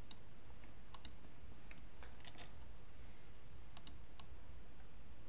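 Scattered light clicks from operating a computer, about ten, some in quick pairs, over a steady low hum.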